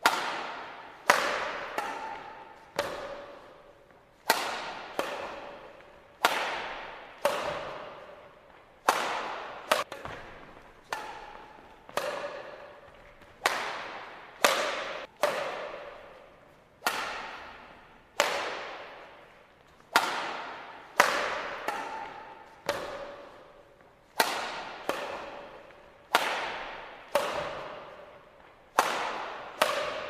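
Background music: a melody of single notes, each starting sharply and ringing away, about one a second.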